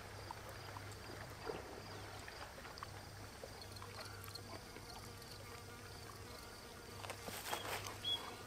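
Faint outdoor ambience with faint, high, repeated insect chirping, and a few soft clicks and rustles about seven seconds in.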